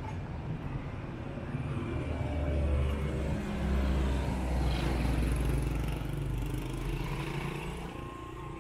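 Street traffic: a motor vehicle's low engine rumble builds, passes close by in the middle, then fades away.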